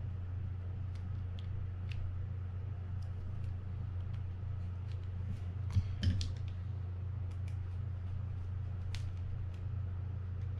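Light scattered clicks and taps of small metal reel parts being handled and fitted during reassembly, over a steady low hum. Two sharper clicks come about six seconds in.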